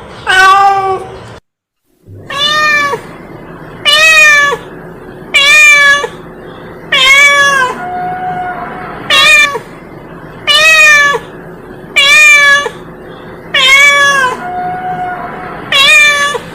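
A domestic cat meowing over and over, about a dozen meows roughly one every second and a half. The sound drops out briefly about a second and a half in.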